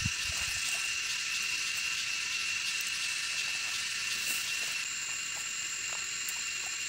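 Steady outdoor insect chorus with a constant high-pitched tone; a second, higher tone joins about five seconds in. Under it runs a soft hiss of water trickling in a small muddy field channel, with faint scrapes of hands working wet soil.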